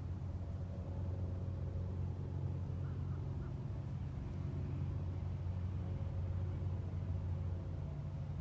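Steady low hum of an engine running at an unchanging speed.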